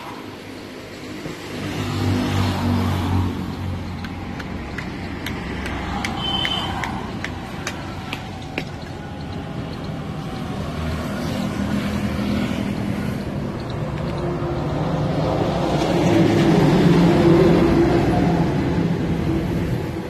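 Road traffic with motor scooters and cars passing, swelling louder about two seconds in and again near the end. A brief high beep sounds about six seconds in.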